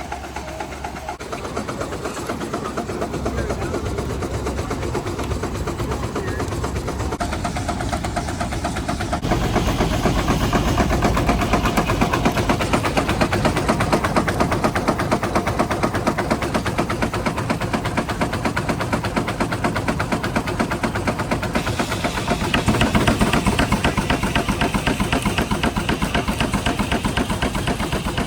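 Steam traction engine running a sawmill, its exhaust thumping in a fast steady beat; it grows louder about a third of the way in and changes again near the end.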